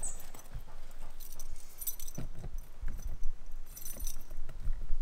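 A bunch of keys jingling in two or three short bursts at a caravan door's lock, with a few soft low thumps.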